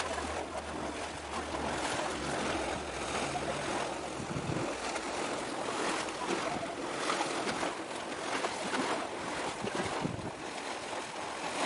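Steady outdoor rush of wind and waves by the sea, with gusts swelling and easing unevenly. A low hum underneath fades out about four seconds in.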